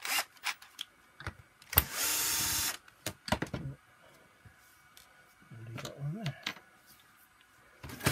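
A cordless drill runs briefly for just under a second, about two seconds in, while a screwdriver bit is being fitted. Sharp clicks and knocks of bits and tools being handled on a wooden table come before and after it, with a louder knock near the end.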